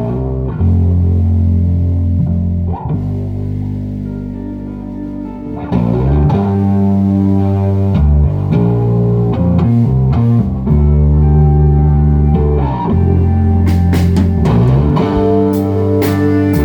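Live instrumental rock band: electric guitar and bass guitar playing slow, held notes, the band getting louder about six seconds in, with cymbal hits joining near the end.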